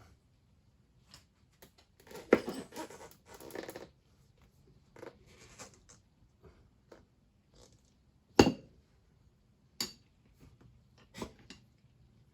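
Tyre levers and rubber worked against the wheel rim while refitting a tubed tyre: a stretch of scraping and rustling early on, then a few sharp metallic knocks, the loudest about eight seconds in.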